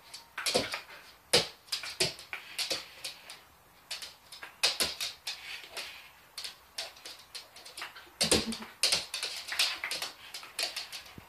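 A dog's claws clicking and scrabbling on a hard laminate floor as it jumps and spins, in quick irregular taps.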